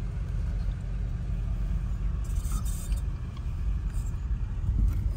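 Low, steady vehicle rumble heard from inside a car cabin as the queue of cars begins to move, with a brief rustle of the phone being handled a couple of seconds in.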